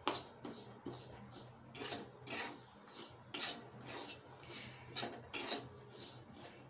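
Metal spatula scraping and stirring dry semolina and peanuts around a metal kadai in irregular strokes, keeping the semolina moving so it doesn't catch on the bottom while it dry-roasts. A steady high-pitched whine sounds underneath.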